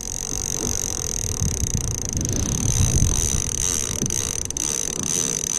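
Low, uneven rumble of wind buffeting the microphone on a boat at sea, under a steady high-pitched whine.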